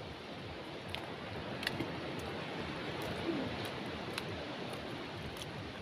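Steady outdoor background noise, an even wash, with a few faint sharp clicks.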